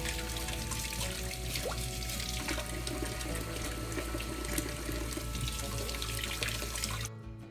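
Water running steadily, with soft background music under it; it cuts off abruptly about seven seconds in.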